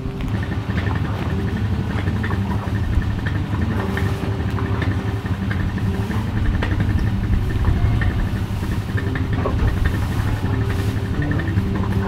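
An engine idling steadily.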